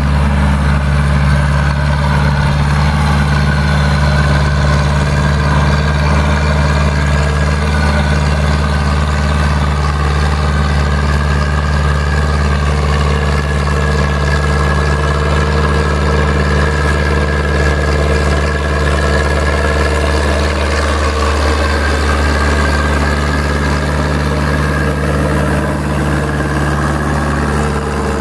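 Zetor 7245 tractor's four-cylinder diesel engine running steadily at constant revs while hauling a trailer loaded with logs.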